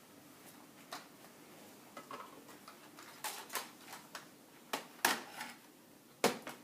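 Irregular sharp plastic clicks and knocks from a toy Nerf blaster being handled, with the loudest clacks about five and six seconds in.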